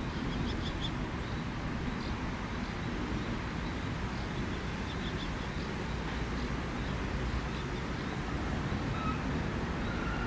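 A few faint, short bird chirps, clustered in the first second and again around five seconds in, over a steady low rumble of outdoor background noise.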